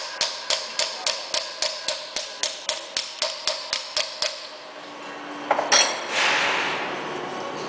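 Hammer blows on a steel punch set against the slotted round nut of an extruder screw shaft, driving the nut around. There is a steady run of sharp metallic knocks, about three a second, for roughly four seconds, then a brief clatter of metal a little later.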